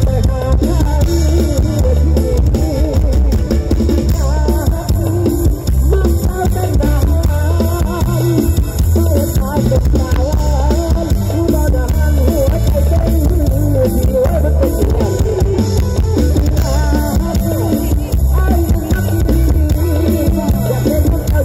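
Loud live Isan mor lam stage music through a big PA: a steady heavy bass-drum and drum-kit beat with guitar and a wavering melody line over it.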